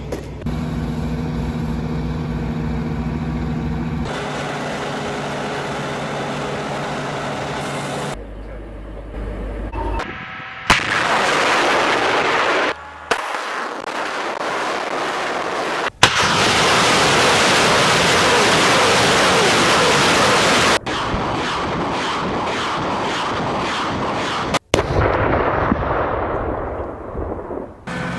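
Russian multiple rocket launchers firing in a run of separate clips: rockets leaving the tubes as long, loud rushing blasts, one stretch of launches following each other in quick succession, and a rushing noise fading away near the end as rockets fly off. A steady vehicle hum is heard in the first few seconds.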